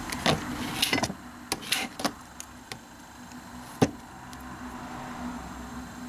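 Short scrapes and clicks on a steel nail-stamping plate: several quick strokes in the first two seconds, then one sharp click a little before the middle as the silicone stamper is pressed onto the plate to pick up the design. A low steady hum runs underneath.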